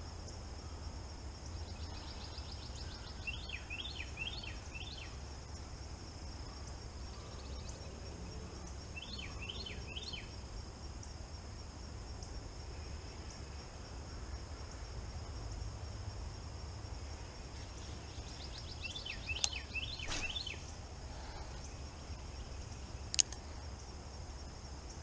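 Pondside morning ambience: a steady high insect drone, crickets, with a low rumble beneath. A bird calls in short runs of quick chirps about four times. Two sharp clicks come late on.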